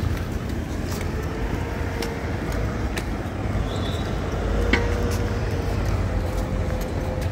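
Road traffic in a town street: a steady low rumble of passing vehicles with a faint engine-like hum, and scattered light clicks.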